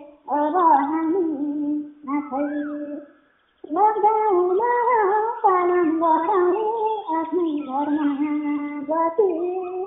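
A woman singing a Nepali folk song (lok geet) in a bending, ornamented melody, in phrases with a brief break about three seconds in.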